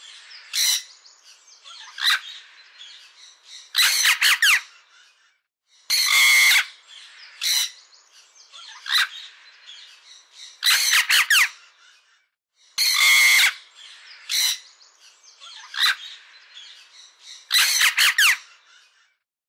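Parrot squawking: harsh, screechy calls in short clusters. The same few-second run of calls repeats about every seven seconds, three times over.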